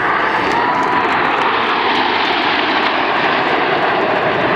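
Red Arrows formation of BAE Hawk T1 jets flying over, their jet engines making a loud, steady noise.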